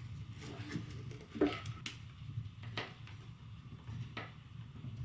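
A few light clicks and knocks as a birdhouse camera and its parts are handled, over a low steady room hum.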